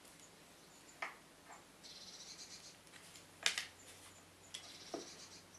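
Scattered light clicks and taps of a craft-knife blade and a small Lexan lure lip being worked on a hardboard surface, the sharpest click about halfway through, with a couple of short, faint scrapes.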